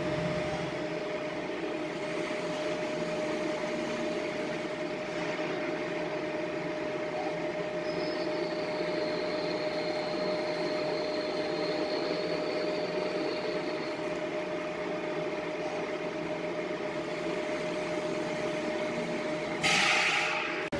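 Roll fluting machine cutting flutes into a milling roll with a single-point tool: a steady machine hum with a constant mid-pitched tone, and a faint high whine for several seconds in the middle. A short, loud hiss about a second before the end.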